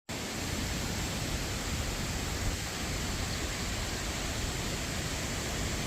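Strong wind blowing and buffeting the microphone: a steady rushing hiss over a fluttering low rumble.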